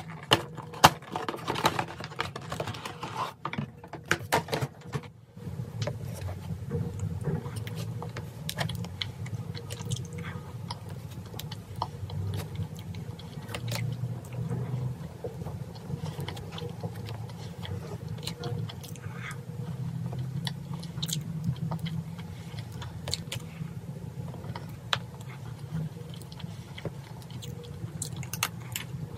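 Close-miked eating of chocolate cake: soft chewing and biting with scattered fork clicks. In the first few seconds there is a burst of clatter and rustling as the cake box is opened on a wooden tray.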